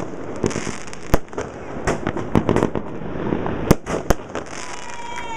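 A 36-shot 1.75-inch fireworks cake firing alternating gold crackle and golden-rain shells: sharp bangs every half second to a second, irregularly spaced, over a running crackle.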